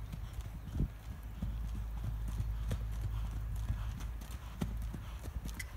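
Hoofbeats of a five-year-old American Saddlebred gelding moving under a rider on arena sand: scattered, uneven strikes over a steady low rumble.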